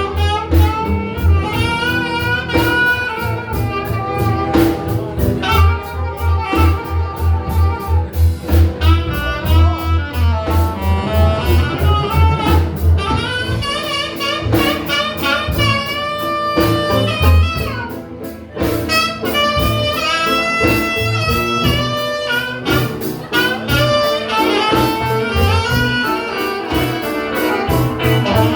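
Live blues band playing, a saxophone carrying the lead melody in long bending phrases over a steady bass and drum beat.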